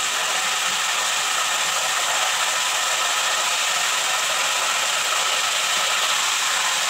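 Hot oil sizzling steadily around a whole chicken frying in a stainless steel pot.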